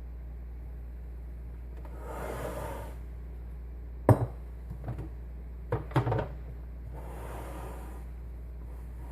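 A few sharp knocks and clatters of hard objects being handled, the loudest about four seconds in, with soft rushing noises before and after over a steady low hum.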